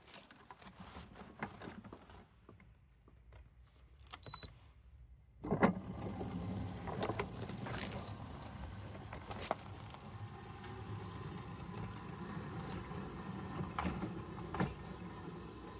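Light clicks and rattles of hands at the controls of a 7¼-inch gauge miniature railroad locomotive. About five and a half seconds in, the locomotive starts up and runs steadily with a motor hum as it pulls away along the track.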